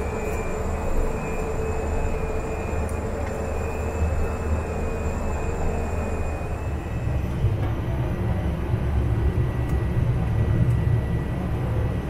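Cessna Caravan's PT6A turboprop engine and propeller running, heard from inside the cockpit as a steady drone. About seven seconds in, the faint high whine drops away and the low rumble grows heavier as the aircraft taxis onto the runway.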